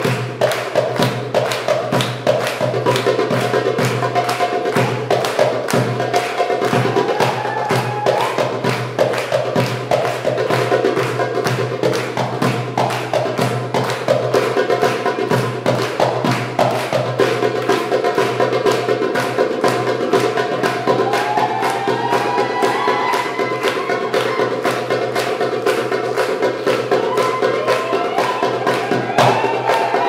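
Darbuka (Egyptian tabla) played live in a fast drum solo, with rapid, dense strokes throughout over a steady drone. A wavering melody line glides in from about twenty seconds in.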